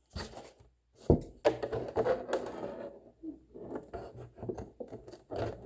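Irregular clicks, taps and scraping from cutting and handling a plastic water jug, with one sharper knock about a second in.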